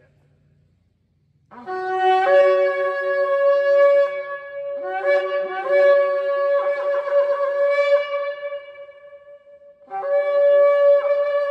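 Long spiralled Yemenite ram's-horn shofar blown in three long blasts. Each starts on a lower note and breaks up to a higher held note, and the last is still sounding at the end.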